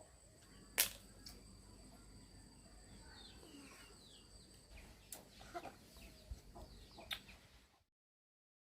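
Chickens clucking faintly, with a few sharp clicks among the calls; the sound cuts off abruptly near the end.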